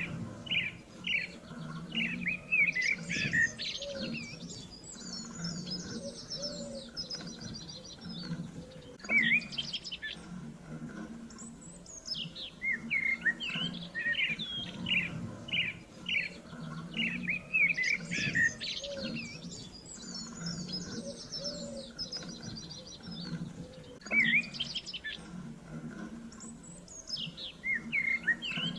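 Songbirds chirping and singing: quick short chirps mixed with fast high trills. The same stretch of birdsong repeats about every 15 seconds, a looped recording.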